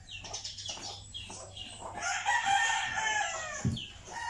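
Rooster crowing: one long call of about a second and a half, starting about two seconds in, after a run of short, quick chirps. A dull thump comes just after the crow.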